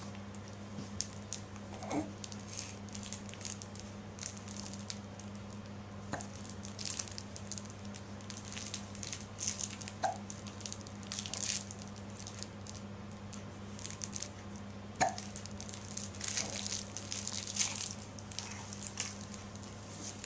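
A baby hiccuping, four small hiccups about four seconds apart, while a textured toy is rubbed and scratched with soft crinkly rustles. A low steady hum runs underneath.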